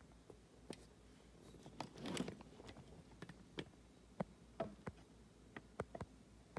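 Faint handling noise: scattered light clicks and taps, with a short rustle about two seconds in.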